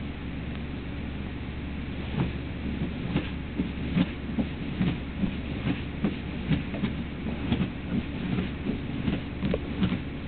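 Doberman puppy scratching and digging at upholstered fabric with its front paws: a regular run of rough scraping strokes, about two to three a second, starting about two seconds in, over a steady low hum.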